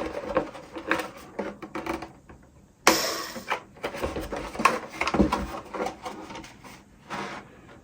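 Handling clicks and knocks, with a short burst about three seconds in as a drill with a small step bit bites into the polycarbonate (Lexan) body to bore a zip-tie hole.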